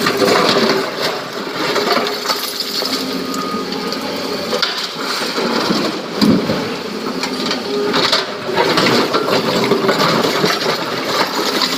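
Hydraulic crawler excavator running while its steel bucket digs and scrapes through broken quarry rock, stones grinding and clattering. About six seconds in, a louder spill of rock as a bucketload is tipped into a dump truck's steel bed.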